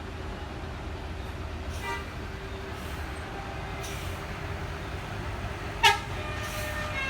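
A bus's engine rumbles low and steady. Just before six seconds a short, sharp horn blast stands out as the loudest sound, and right after it the bus's multi-tone telolet air horn starts its tune of several held notes.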